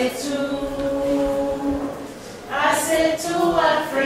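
A group of voices singing together, unaccompanied: one long held note for about two seconds, then a shorter, moving phrase.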